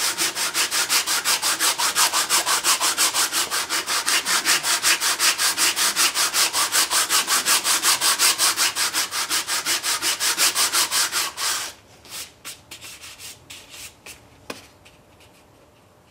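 Hand sanding block with a wooden handle rubbed rapidly back and forth over the flat intake and exhaust face of a metal engine part held in a vise: an even scraping rhythm of about four to five strokes a second. The strokes stop about eleven seconds in, leaving only a few light clicks from the sander being handled and set down.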